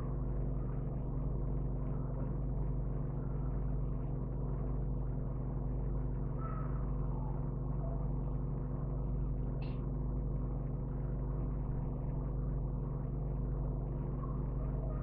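A steady low hum with several constant tones, unchanged throughout, and a faint short tick about ten seconds in.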